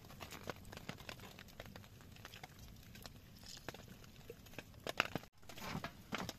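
A run of irregular light clicks and taps at an uneven pace. The sound drops out for an instant about five seconds in, and the clicks are louder after it.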